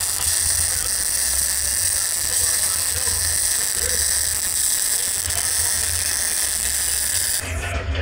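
Wire-feed welder running a continuous bead on a steel box-section seam: a steady crackling sizzle with a low hum underneath, cutting off shortly before the end.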